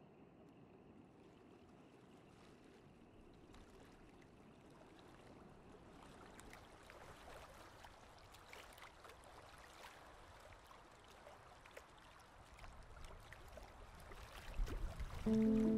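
Faint shallow water lapping and trickling among shore rocks, with small splashes, growing slightly louder. A sustained music chord comes in near the end.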